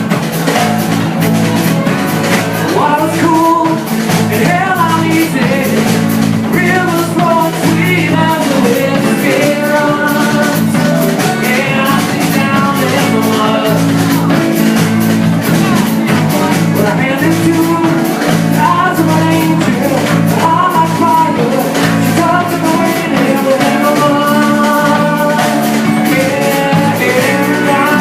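A band playing a song live, with guitar and a wandering melodic lead line over steady chords.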